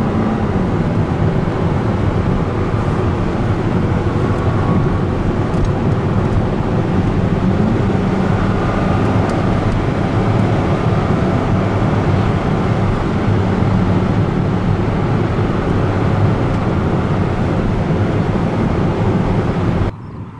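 A 2005 Corvette C6's 6.0-litre LS2 V8 pulling hard at speed, heard from inside the cabin. Its pitch drops at a gear change just after the start and climbs again about a third of the way in, then the sound cuts off suddenly near the end.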